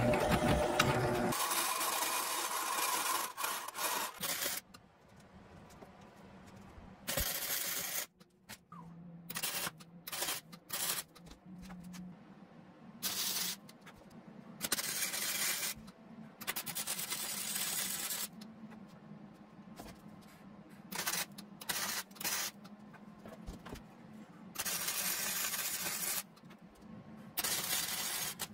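Wire-feed welder laying short welds: many separate bursts of arc noise, each half a second to two seconds long, with a low steady hum between them. For the first few seconds a machine tool's motor runs instead.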